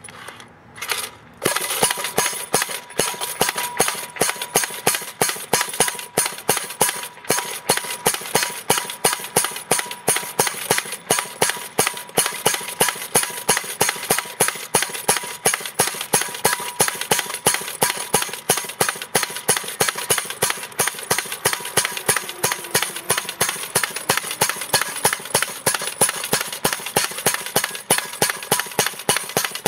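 Yellow powered post driver running and hammering a steel post into the ground, a rapid, even train of metal blows at about three a second over the steady noise of the tool, starting about a second and a half in.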